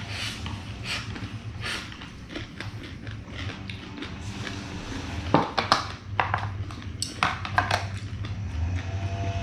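Cutlery clinking against dishes during a meal, a scatter of sharp clicks that grows busier about halfway through, over a steady low hum.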